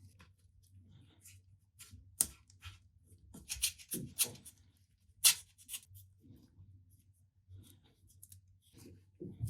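Hand work on small parts: a few sharp clicks and snips, loudest about two, four and five seconds in, over a steady low hum.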